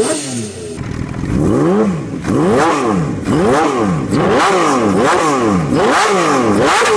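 Honda CBX 1047cc inline-six engine revved in repeated throttle blips at standstill, about one a second, each blip rising and falling in pitch.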